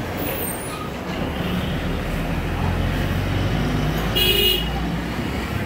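Road traffic: a vehicle engine's low, steady rumble, with a short horn toot about four seconds in.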